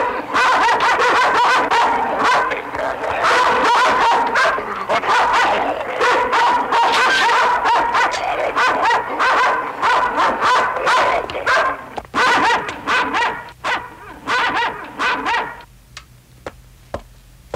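Fierce guard dogs barking hard and fast, bark after bark, at a stranger. The barking thins out and stops near the end.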